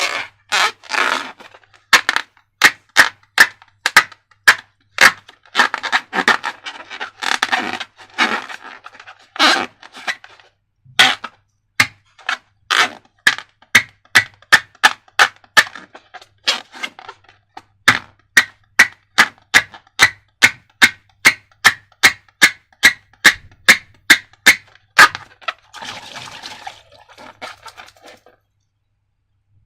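A long series of sharp clicks or snaps, mostly about two a second and very regular for a stretch, with softer rustling or scraping between them; they stop shortly before the end.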